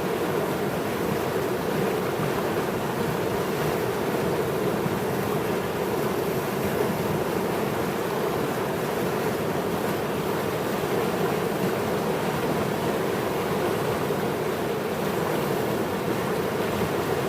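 The East Rapti River in flood, its fast water rushing with a steady, even sound that does not change.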